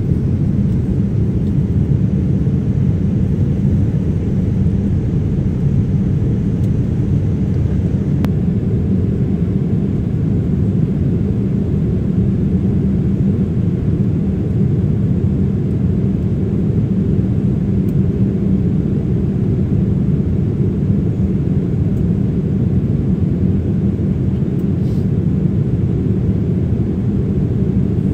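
Steady in-flight cabin noise inside a Boeing 787-10 airliner: an even, low rush of airflow and engine drone with a thin hiss above it, unchanging throughout.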